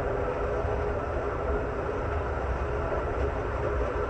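Steady ride noise inside an Amtrak Superliner sleeping car travelling at speed: a continuous low rumble of wheels on rail, with a faint steady hum over it.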